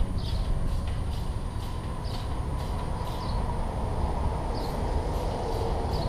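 Steady low outdoor rumble, with short high bird chirps repeating every second or so.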